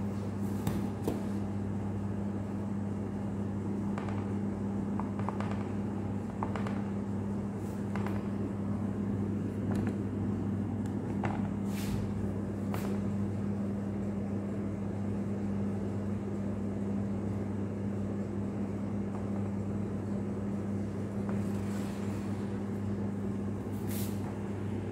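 Steady low electrical hum of kitchen machinery, with a few light clicks and taps scattered through it.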